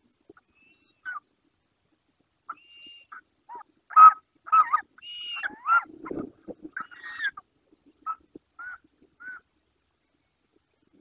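Short-toed eagles calling at the nest: a run of short whistled notes, some sliding up or down in pitch, scattered at first, then thickest and loudest in the middle before thinning out. About six seconds in there is a low rush of wingbeats as one eagle opens its wings to take off.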